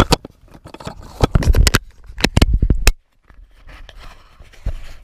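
Handling noise from fingers rubbing and knocking on a small action camera right at its microphone: a run of irregular knocks and scrapes with heavy low thumps, which drops away suddenly about three seconds in and returns more quietly with one last thump near the end.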